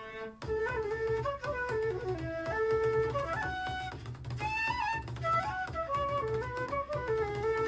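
Instrumental music played back through a Bose SoundLink Mini II Bluetooth speaker and picked up in the room: a wind-like melody over a pulsing bass line. After a brief dip, a new phrase starts about half a second in.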